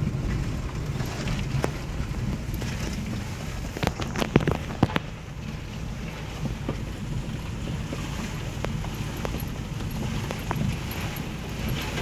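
Car running slowly on a rough dirt track, heard from inside the cabin: a steady low engine and tyre rumble with scattered clicks and knocks, bunched together about four to five seconds in.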